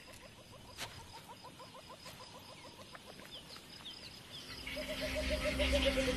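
A bird calling in a rapid, even series of short chirps over quiet bush ambience. Soundtrack music with a low drone and held notes swells in over the last second and a half and becomes the loudest sound.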